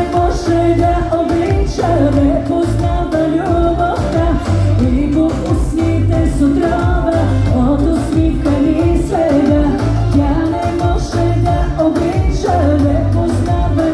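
Live pop music played through an outdoor concert sound system: a woman sings a wavering melody over a steady, pulsing bass beat.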